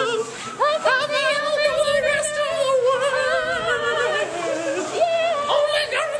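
Music: a high voice singing a sustained, wavering melody with heavy vibrato over steady held accompaniment notes.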